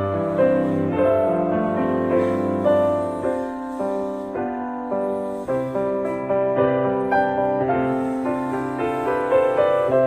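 Background piano music, with held notes that overlap and change every half second or so.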